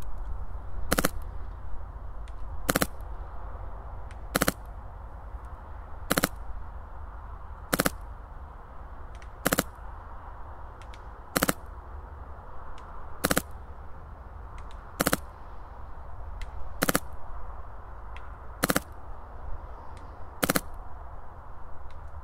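Wolverine MTW high-pressure-air airsoft rifle with an Inferno Gen 2 engine firing single shots at 100 PSI. Each shot is a sharp pop, about one every 1.8 seconds, some twelve in all, over a steady low rumble.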